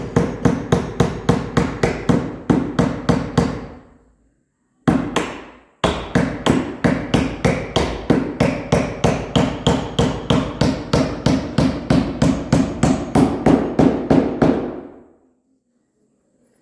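Rapid, even hammer blows on the planking of a wooden boat hull, about three and a half a second: a run of about four seconds, a single blow, then a longer run of about nine seconds.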